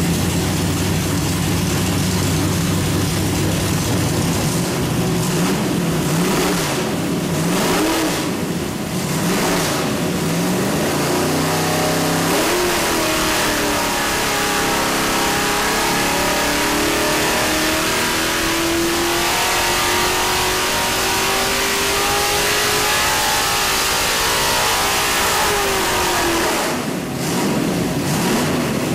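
A 701 hp carbureted small-block Chevrolet 427 V8 running on an engine dyno. It is blipped a few times, then about twelve seconds in it is loaded and pulled up through the revs in one long, steady rising climb. Near the end it falls back toward idle.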